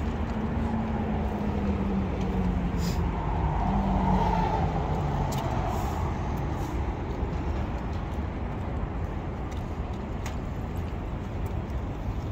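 Steady low background rumble like traffic noise, with a low droning tone that slowly falls in pitch over the first four seconds or so.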